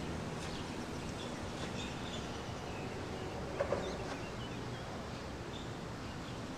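Riverside ambience: a steady low rumble of distant traffic, with faint bird chirps and two short sharp calls in quick succession a little past halfway.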